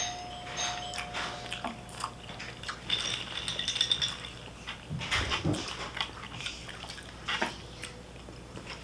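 Eating sounds close to the microphone: scattered clicks and taps of utensils and takeout containers, with chewing.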